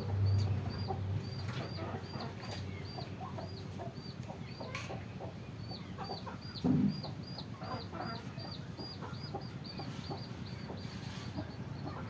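Domestic chickens clucking in low, scattered calls, over a steady run of short high chirps repeating a few times a second. A dull thump about seven seconds in.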